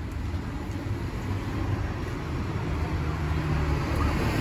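Road traffic going by: a steady low rumble of vehicles.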